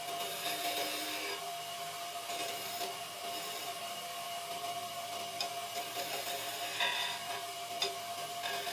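A tool scraping and rasping on wood, with a steady hum under it and a few short clicks in the second half.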